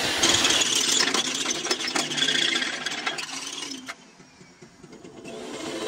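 Workshop tool and machinery noise: a steady mechanical clatter with many quick clicks and rattles, which drops away about four seconds in and returns near the end.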